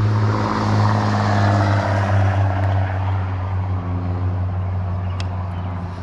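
A motor vehicle's engine running with a steady low drone, with a swell of rushing noise over the first few seconds that fades out.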